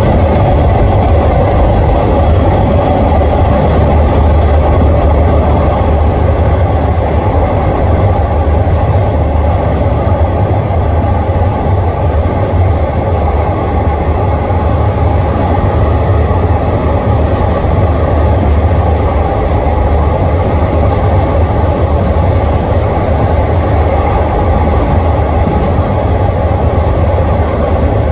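Steady running noise of a passenger train heard from on board: a loud, even low rumble with wheel-on-rail noise over it, without clear rail-joint clicks.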